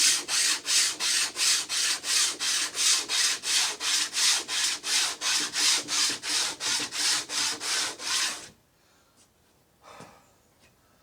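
Hand sanding of wood: fast back-and-forth rubbing strokes, about three and a half a second, that stop abruptly about eight and a half seconds in, followed by a faint knock.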